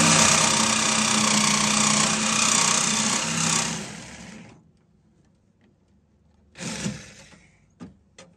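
Reciprocating saw cutting through a car's inner wheel-well sheet metal. It runs steadily, stops a little over three seconds in and winds down by about four and a half seconds. A short second burst of the saw comes near seven seconds, then a few light clicks near the end.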